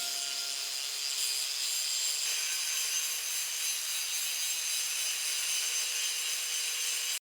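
A power tool working steel, a steady high-pitched noise that cuts off suddenly at the end.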